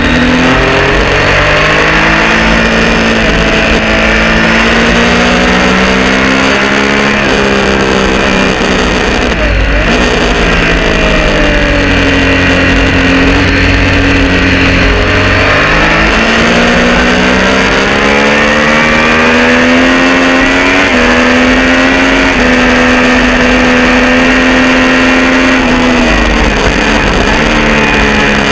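Triumph Street Triple R 675 inline three-cylinder engine through an unbaffled Arrow exhaust, heard from on board at racing speed. It climbs through the revs with quick stepped quickshifter upshifts, drops away sharply under braking and downshifts about ten seconds in, about sixteen seconds in and again near the end, then pulls hard back up.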